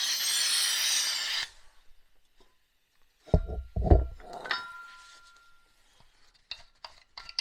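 MAPP gas and oxygen torch hissing, cut off abruptly about a second and a half in. Then two heavy knocks about half a second apart, a short metallic ring, and light clinks of tools being handled.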